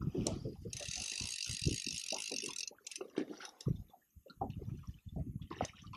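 Click-and-pawl fly reel ratcheting in irregular bursts while a hooked rainbow trout is played, with a faster run of clicking from about a second in to nearly three seconds as the fish pulls line.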